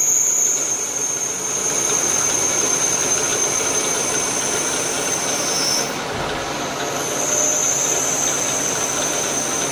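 FEMCO HL-35 slant-bed CNC lathe running, its tool cutting radiuses into a nylon part dry, without coolant. A steady hissing machine noise carries a high steady whine, which dips slightly in pitch and breaks off briefly about six seconds in before coming back.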